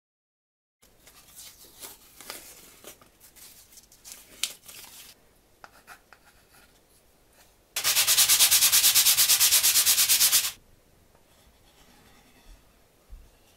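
Wood rubbed on sandpaper by hand: a thin plywood piece is sanded in quick, even back-and-forth strokes for about three seconds in the second half, loud and rhythmic. Before it come several seconds of lighter irregular scratching of pencil and wood on the work surface.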